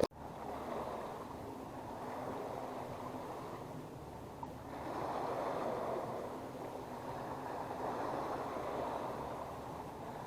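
Choppy water lapping against a small fishing boat, a steady wash that swells louder about five seconds in and again near the end.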